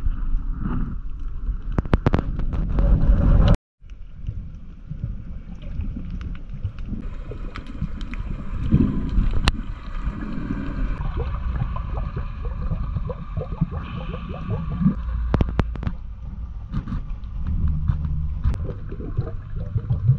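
Muffled underwater noise picked up by a camera held below the surface: a steady low rumble of moving water with scattered clicks and pops. The sound cuts out briefly about three and a half seconds in.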